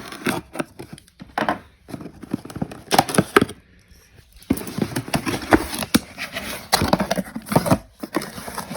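Product packaging being opened and unpacked by hand: irregular rustling and scraping with many small clicks and knocks, pausing briefly a little past the middle.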